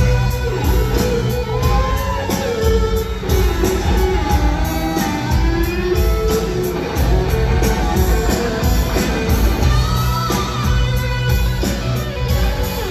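Live rock band playing over a concert PA, an electric guitar lead over drums and bass with little or no singing.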